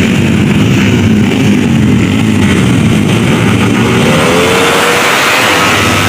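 Motorcycle engines running and revving hard, loud and continuous, with one rev rising in pitch about four seconds in.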